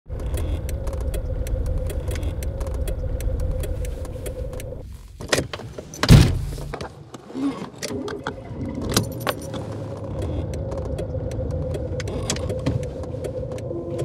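A car engine idles with a low rumble while the hazard-light relay ticks in a string of clicks. A single heavy thump comes about six seconds in.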